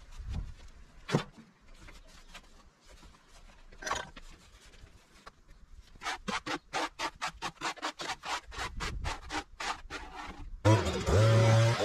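A few scrapes and knocks, then a plastic leaf rake scratching over bare soil in quick, even strokes, about four a second. Music comes in loudly near the end.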